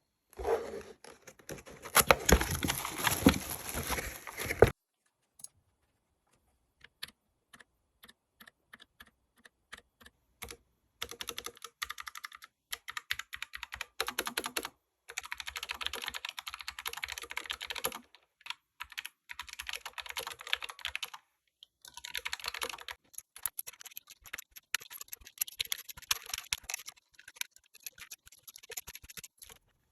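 Typing on an ABKO Hacker K640T Slim mechanical keyboard with linear red switches that have been given a quick lube. It opens with a loud, dense burst of fast typing. Then come scattered single keystrokes, then several long runs of rapid typing.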